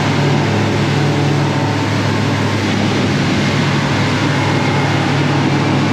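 Aluminium plate boat running at speed across open water: its engine makes a steady low hum under a constant rush of wind, hull slap and spray, with no change in pace.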